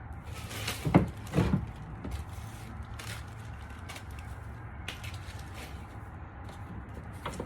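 Knocks and clicks of parts being handled while working on a car door, with two louder knocks about a second in followed by scattered lighter clicks.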